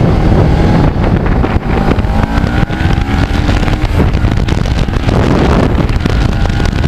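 Heavy wind buffeting on the microphone of a moving motorcycle, with the Kawasaki Ninja 650R's parallel-twin engine under it. The engine's pitch rises slowly for a couple of seconds partway through.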